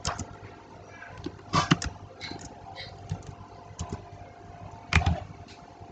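Scattered computer mouse and keyboard clicks, a handful of short sharp taps with the loudest near the end, over a faint steady hum.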